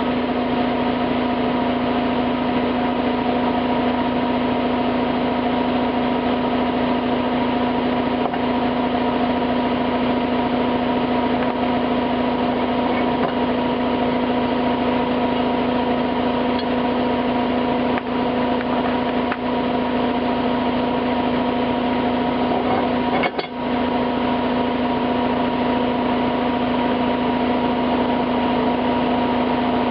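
Electric power tool motor running steadily with a constant hum, cleaning up the base of a bench vise. The sound dips briefly twice, about eighteen and twenty-three seconds in.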